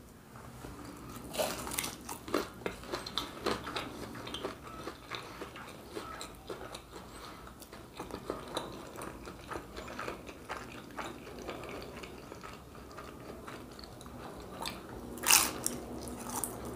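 Close-up mouth sounds of biting and chewing a crispy fried Brazilian pastel: the fried pastry shell crunches and crackles in quick irregular clicks. A louder crunchy bite comes near the end.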